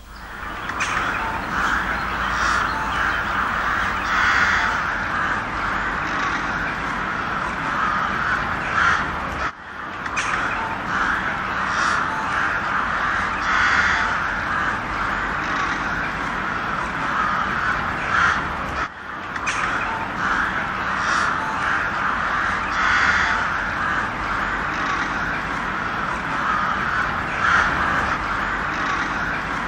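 A flock of crows cawing loudly, many calls overlapping with hardly a pause, with two brief drop-outs about a third and two thirds of the way through.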